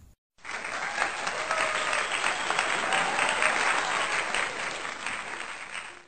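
Crowd applause: dense clapping that starts abruptly about half a second in and dies away near the end.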